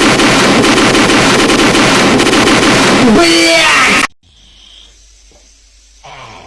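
An extremely loud, heavily distorted blast of noise with a wavering voice in it, cut off abruptly about four seconds in. A short voiced sound follows near the end.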